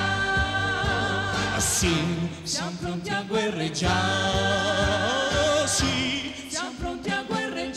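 Live Christian worship song: voices holding long notes with vibrato over an electronic keyboard, with a steady beat underneath.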